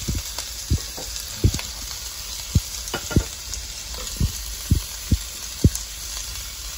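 Sliced cucumber and red onion sizzling steadily in a frying pan, with sharp pops at irregular intervals, about ten in all.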